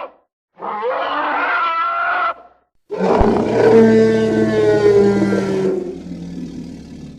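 Tyrannosaurus rex roar sound effects. A short roar of about two seconds comes first, then after a brief pause a longer, louder roar of about four seconds that fades out.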